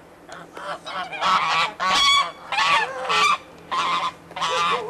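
Domestic geese honking loudly, a run of about six or seven separate calls that grow louder from about a second in.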